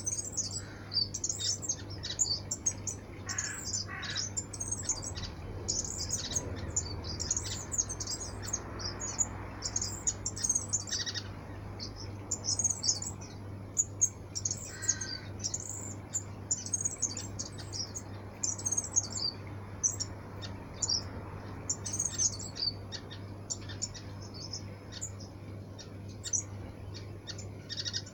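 A flock of waxbills chirping constantly, many short, high, thin calls overlapping one another, over a steady low hum.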